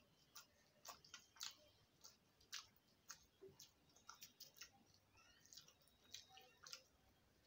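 Faint eating sounds: soft irregular clicks and smacks, roughly two a second, from a mouth chewing rice khichdi and fingers working it on a steel plate.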